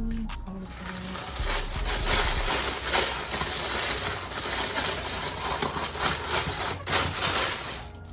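Packing material, paper or plastic, being crumpled and handled in a box, a dense run of irregular crinkling and crackling that stops just before the end.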